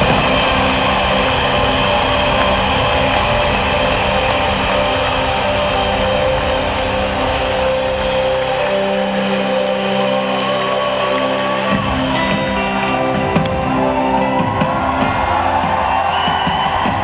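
Live worship band music filling an arena, sustained chords held under a thin, phone-recorded sound; the bass falls away for a few seconds in the middle and then comes back in.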